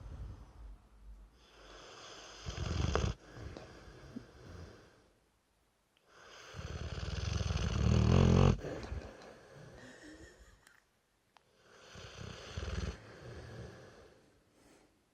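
Dorset Old Tyme Bulldog snoring loudly: three long snores about five seconds apart, each swelling and then stopping suddenly, the middle one the longest and loudest, with softer breaths between.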